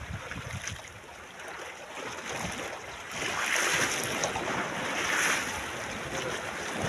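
Sea waves washing against a rocky shore: a steady hiss of surf that grows louder about three seconds in and swells again near five seconds.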